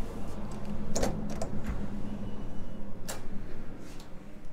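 A front door being opened to walk in: a few sharp clicks of the handle and latch, the clearest about one second in and again near three seconds, over a low steady hum.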